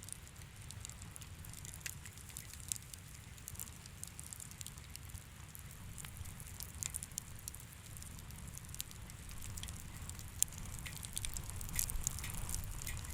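Wood fire crackling: frequent small, sharp pops and snaps, coming thicker near the end, over a steady low rumble.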